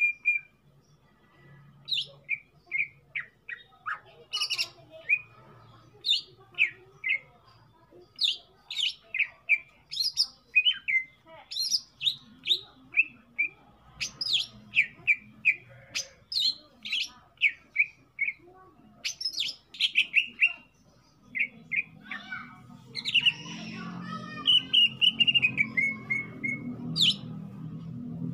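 Caged green leafbird (cucak ijo) calling at its own reflection in a mirror set beside the cage, which it takes for a rival: a long run of short, sharp chirps, one to three a second, then a longer warbling phrase that falls in pitch a little after the twenty-second mark.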